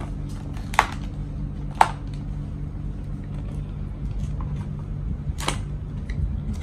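A wireless Bluetooth headset's cardboard box being opened by hand: a few sharp clicks and snaps of the packaging, the loudest about one and two seconds in and again after five seconds, over a steady low hum.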